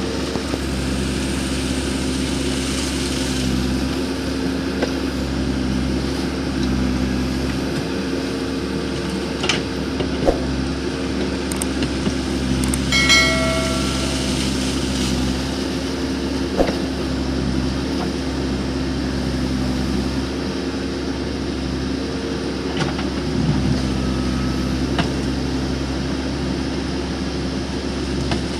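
Case backhoe loader's diesel engine running steadily while digging, with a few sharp knocks and a short high-pitched tone about thirteen seconds in.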